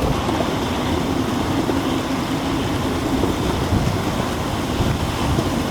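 A steady low roar of wind as a severe squall line approaches. It is the low rumble the storm makes ahead of its gust front, with no separate thunder claps.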